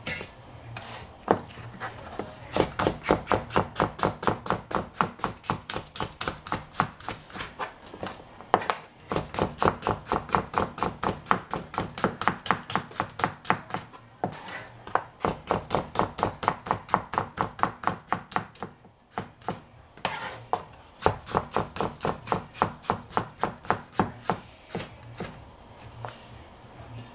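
Knife chopping vegetables on a cutting board: rapid, even strokes, about four to five a second, in long runs with brief pauses between them.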